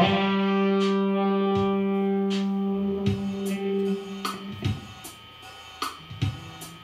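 Electric guitar through a small practice amp and a Casio electronic keyboard playing together: a held chord rings for about four seconds and slowly fades, then a few scattered short notes follow.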